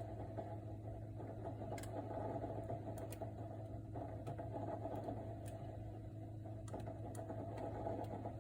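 Samsung RT32 refrigerator running with an abnormal noise: a steady hum under a continuous rattly buzz, with a few faint ticks.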